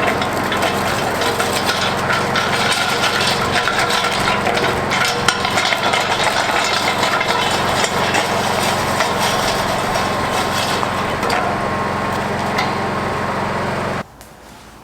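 Honda EM4000SX generator's engine running steadily at low idle on its auto-idle setting, with no load on it. It cuts off suddenly near the end.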